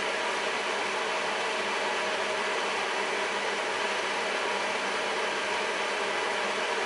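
Steady hiss with a faint hum from a pan of mushroom cream sauce simmering on a gas stovetop.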